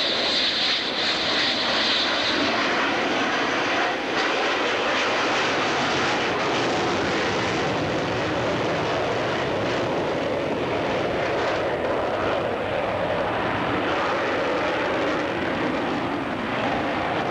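Jet fighter, by its twin tails and swing wings an F-14 Tomcat, flying past with its engines making a steady loud rush. A high whine fades out over the first few seconds.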